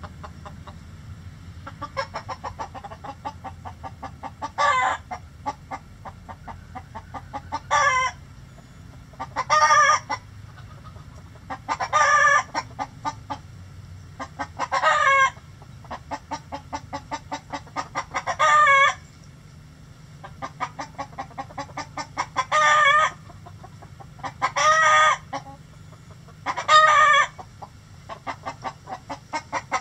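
Chicken clucking rapidly and steadily, broken about nine times by a loud, drawn-out squawk lasting about a second, in the pattern of a hen's cackle.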